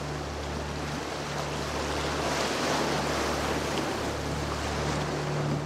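Steady rushing ambience of wind and surf, swelling a little in the middle, with low steady tones underneath.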